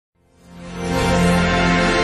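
Musical logo sting: a sustained chord that swells in from silence over the first second, then holds.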